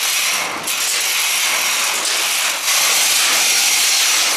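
Steady, loud hiss of the burner under a giant cooking pot, its flame just turned up.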